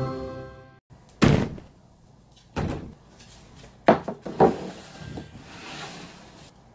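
Music fades out, then four separate thumps and knocks at uneven gaps of one to one and a half seconds, like a door shutting or things being set down.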